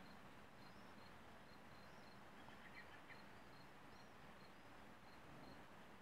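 Near silence: faint outdoor background, with a soft high chirp repeating about twice a second and a few brief twittering calls around the middle.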